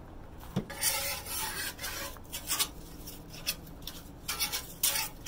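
Flat metal spatula scraping back and forth across the steel plate of a Blackstone flat-top griddle, spreading cooking oil over it in a series of short scraping strokes, after a light knock about half a second in.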